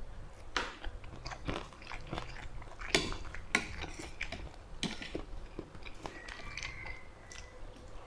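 Close-up chewing of a mouthful of sticky rice and eel curry, with many short, sharp wet mouth clicks and a few crunchy bites.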